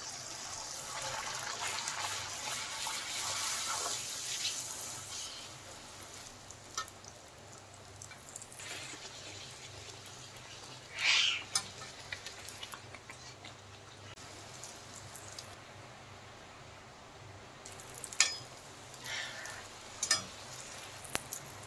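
Puri deep-frying in hot oil in a kadai: the oil sizzles loudly for the first five seconds or so, then settles to a faint crackle. A few sharp clicks and short hissing bursts break in, the loudest about eleven seconds in and more near the end.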